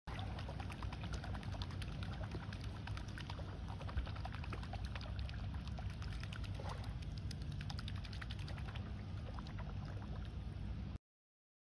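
Shallow water washing over a shelly beach edge, with a fine, dense crackle of water among shells and sand over a steady low rumble; it stops abruptly near the end.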